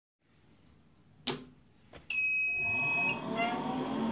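Pure sine wave solar inverter switching on: a click about a second in, then a steady high-pitched beep lasting about a second. As the beep sounds, a steady running noise starts and keeps going.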